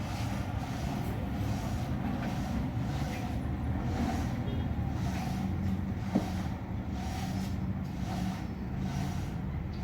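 Steady low engine drone, with a single sharp click about six seconds in.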